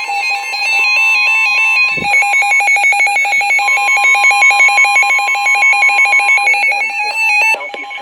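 Emergency Alert System alert tone blaring loudly, two steady tones held together. About two seconds in it breaks into a fast, even pulsing warble, and it cuts off abruptly near the end.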